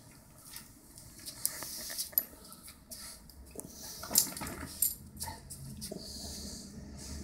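Basset hound moving about at close range: scattered short clicks and rustles, the loudest about four and five seconds in.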